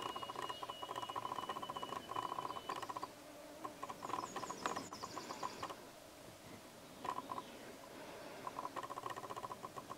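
Red fox chewing a fish, a rapid run of short wet crunching clicks in bursts with pauses between them. Birds sing in the background, with a thin steady whistle early on and a quick falling run of high notes about four seconds in.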